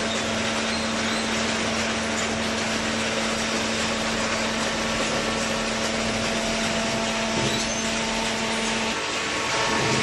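Hydraulic cardboard baler and its feed conveyors running: a steady mechanical din with a constant hum that drops out about nine seconds in.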